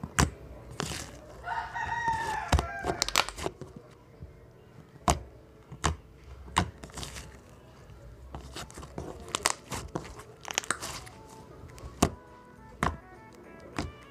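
Homemade slime being handled, giving sharp clicks and pops every second or so. A rooster crows in the background about a second and a half in.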